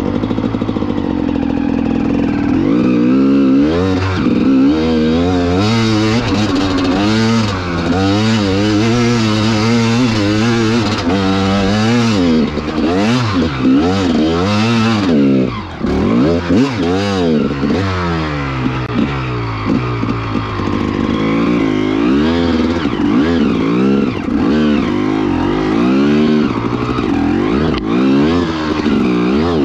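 2002 Gas Gas EC 300 two-stroke single-cylinder enduro motorcycle engine, revving up and down over and over as the throttle is worked, its pitch rising and falling every second or so. Near the middle it briefly drops off.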